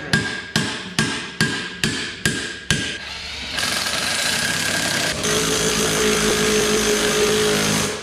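Sharp metal strikes on a tractor tire bead breaker, about seven of them a little over two a second, each ringing briefly. From about three and a half seconds in they give way to a loud continuous power-tool run, with a steady tone joining about five seconds in, as a cordless impact wrench drives the bead breaker's screw.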